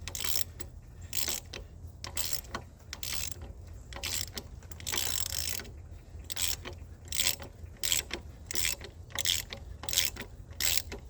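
Hand ratchet wrench clicking in short repeated strokes as a bolt on a 454 engine is turned by hand.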